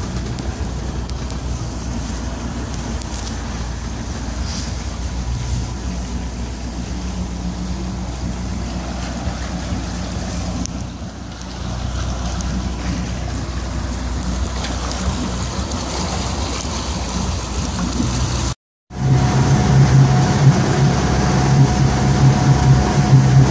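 Four Winns 268 cruiser's engine running with a steady low hum as the boat moves slowly. After a brief break near the end it runs louder, with rushing water and wind from the boat under way at speed.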